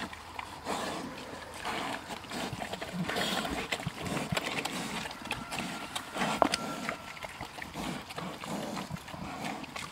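Two pigs eating food scraps from a rubber feed pan: busy chewing and rooting, with many small irregular clicks and knocks.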